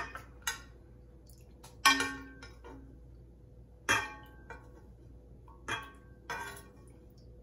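Metal spoon clinking against the pot and the glass blender jar while boiled tomatoes are spooned across: a series of sharp clinks with a brief ring, one every second or two.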